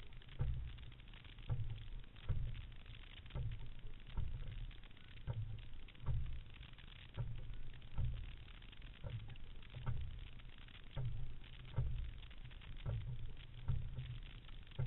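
Fluidesign single racing scull being rowed with short drill strokes: a low knock with a sharper click about once a second from the oars working in the oarlocks, over the steady wash of water along the hull.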